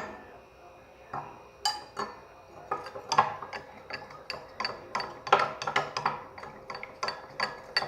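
A spoon stirring and scraping a mixture in a bowl, clinking against the sides in quick irregular taps that start about a second in and come a few times a second.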